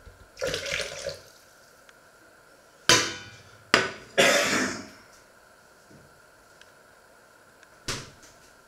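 A short rush like liquid pouring. Then a stainless steel saucepan clanks sharply down onto a glass-ceramic hob with a brief metallic ring, knocks again and scrapes across the glass. One more sharp knock comes near the end.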